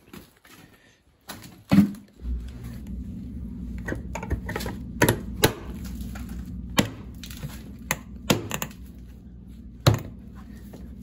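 Several sharp knocks and clicks, spaced irregularly, as the van's rear bumper cover is handled and pressed into place. Under them a steady low hum starts about two seconds in.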